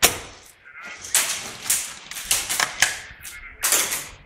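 Airsoft guns firing in an exchange of fire: a sharp crack at the start, then uneven single shots and short strings, with the densest burst near the end.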